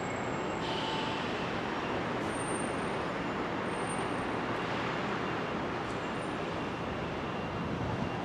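Steady city background noise, an even rumble of traffic and distant rail with no single event standing out.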